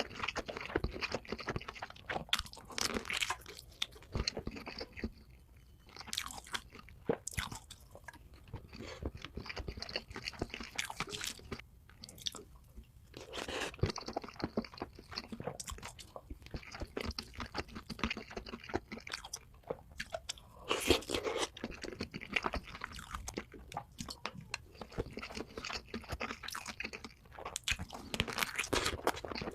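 Close-miked crunchy chewing and biting of food, dense irregular crackling that thins out in short lulls and picks up again.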